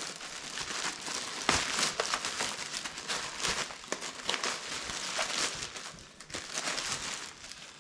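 Clear plastic bag crinkling and rustling irregularly as a belt sander is handled and worked out of it.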